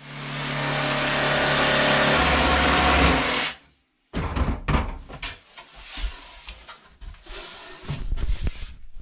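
Cordless circular saw running and cutting through a thin plywood panel, a steady loud whine that cuts off about three and a half seconds in. After a short gap come irregular knocks and rubbing as the cut plywood sheet is handled.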